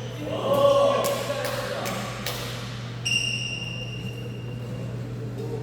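Badminton rackets striking a shuttlecock, several sharp cracks in the first couple of seconds, with voices in a large hall over a steady electrical hum. A high, steady squeal starts about three seconds in and lasts about two seconds.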